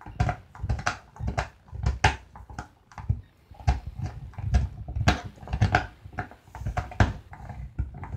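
An animal breathing in soft rhythmic pulses, about two a second, with light clicks and knocks mixed in.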